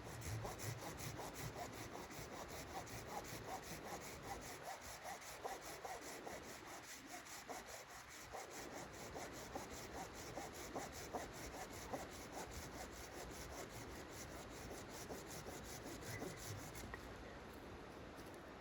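Hand saw cutting through wood in quick, even back-and-forth strokes, stopping shortly before the end.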